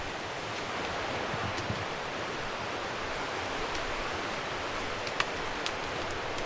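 Steady rushing of a stream, with a few light clicks over it.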